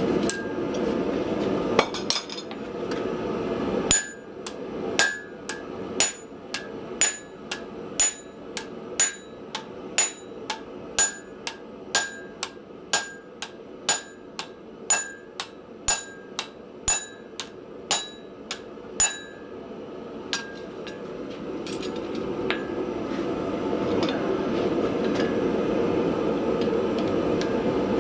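Hand hammer striking hot steel on an anvil, forging out bar stock: a steady run of about two blows a second, each with a bright ring, for some fifteen seconds. A steady rushing noise fills the stretches before and after the hammering.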